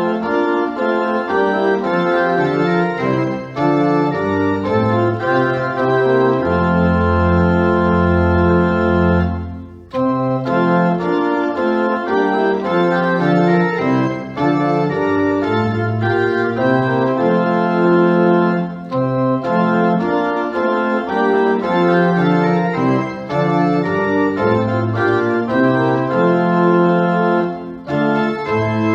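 Organ playing a slow prelude of sustained chords, with a long held chord over a deep bass note about a third of the way through.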